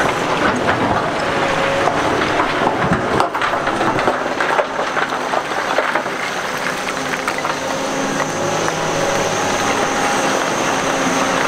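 Cat 245B excavator's diesel engine running steadily while rock clatters and knocks in its bucket, with many sharp impacts through the first half and fewer after that.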